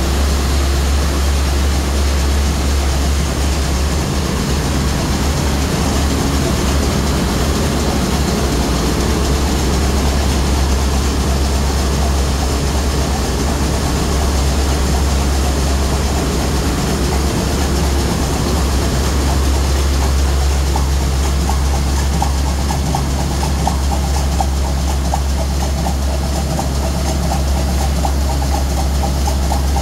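Loud, steady din of a ship's engine room, dominated by a deep low hum from the running marine diesel engine and auxiliary machinery. A faint high whine joins in about two-thirds of the way through.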